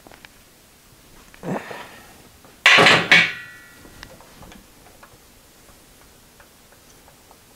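Steel vise crank handle clanking twice against metal, each knock close to the last, with a short metallic ring afterwards; a softer rattle comes about a second before.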